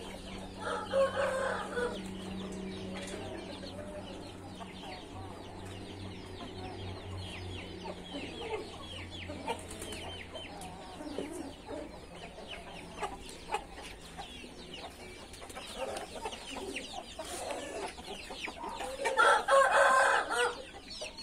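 Backyard chickens clucking, with many short, high, falling peeps all through. A rooster crows once, loudly, near the end.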